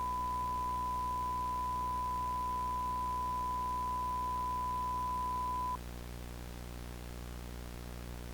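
A steady single-pitched electronic beep, the kind of test tone a broadcast puts out when its programme is cut. It holds for nearly six seconds and stops suddenly, over a faint low electrical hum that carries on after it.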